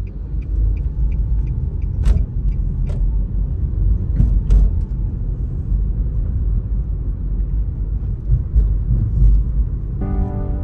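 Car driving in town traffic: a steady, deep rumble of road and engine noise, with a few sharp clicks or knocks between about two and four and a half seconds in. Piano music comes in just before the end.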